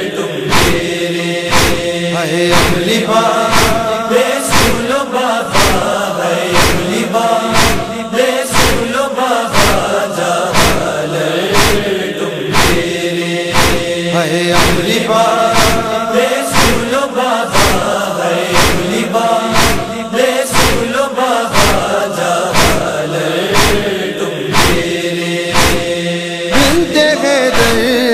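Noha interlude: a chorus of voices chants over a steady, evenly spaced percussive beat, without clear lyrics.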